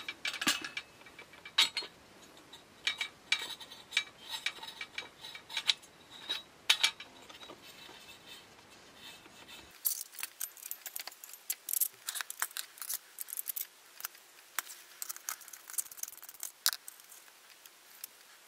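Irregular metal clicks and clinks as a wrench works on a Coleman Peak 1 gasoline stove and its small metal parts are handled and set down on an aluminium tray. About ten seconds in the sound becomes fast-forwarded, so the clicks come much quicker and sharper.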